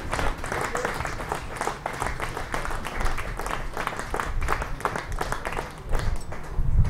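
Spectators applauding, many hands clapping unevenly. The clapping thins near the end, where a low rumble comes in.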